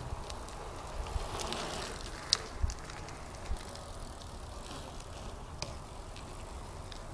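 2010 Eastern Growler BMX bike being ridden: a swell of tyre noise and a scatter of sharp clicks and knocks, the loudest about two and a half seconds in.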